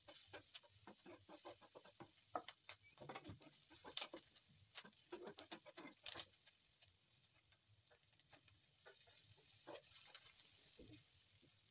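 Metal spoon scraping and tapping against a nonstick frying pan while chopped onions are stirred in oil, with light sizzling. The clicks come irregularly, with two louder knocks about four and six seconds in and a quieter spell before the stirring picks up again near the end.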